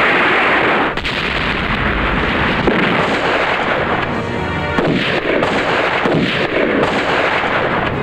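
Old Hindi film gunfight soundtrack: gunshot and blast sound effects over background score.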